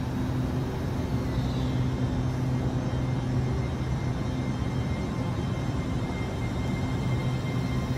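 LNER Azuma (Hitachi intercity train) running at the platform: a steady hum with a low drone and a faint, thin high whine.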